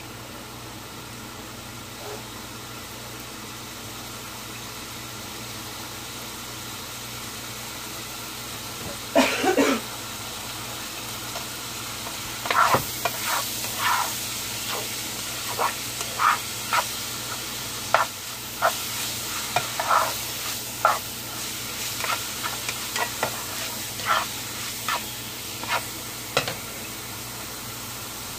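Steak strips sizzling in hot oil in a frying pan, a steady hiss that slowly grows louder. From about nine seconds in, a plastic spoon repeatedly knocks and scrapes against the pan as the meat is stirred.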